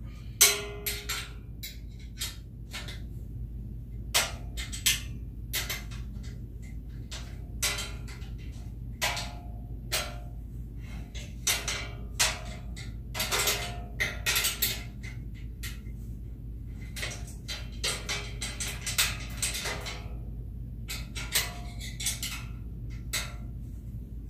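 Painted metal cart parts knocking and clanking as a tubular frame is worked into a perforated mesh basket: irregular sharp clanks, some in quick clusters, with short ringing tails. A steady low hum runs underneath.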